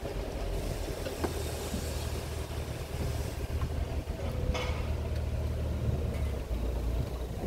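Tourist road train's engine running with a low, steady hum as it rolls slowly along the street.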